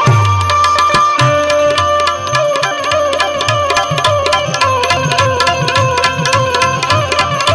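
Instrumental interlude of a Gujarati bhajan: a harmonium carries a sustained, slightly wavering melody over hand drums keeping a steady beat, with quick sharp percussion strikes running densely through it.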